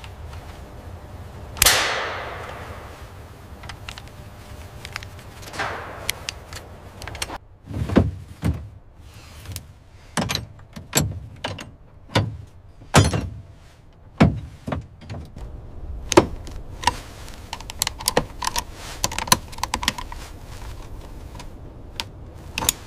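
Clatter of hand tools on metal parts: a string of irregular knocks, clunks and clicks. A hissing rush comes about two seconds in and a softer one near six seconds, and quicker light clicks follow in the last several seconds.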